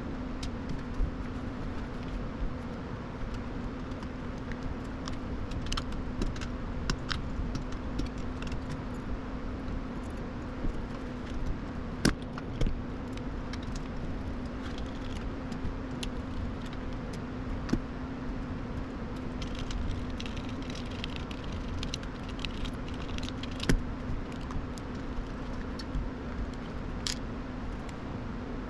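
Scattered small metallic clicks and clinks of screws and tools being handled while taking apart a graphics card, over a steady low hum.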